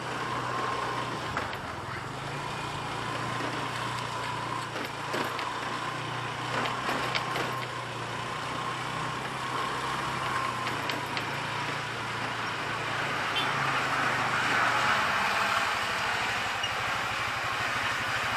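Motorcycle running along a road: a steady engine hum under road and traffic noise.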